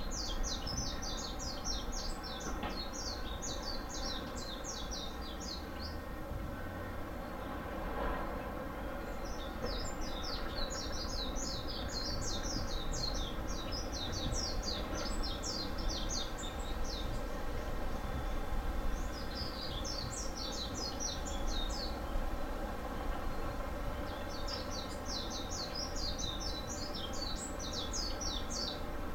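A small bird singing in four bouts of rapid, high chirping notes, each a few seconds long, over a steady low outdoor rumble.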